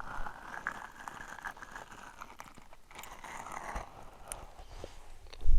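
Close-miked ASMR mouth sounds: scattered wet clicks and smacks of the tongue and lips over a soft breathy hiss.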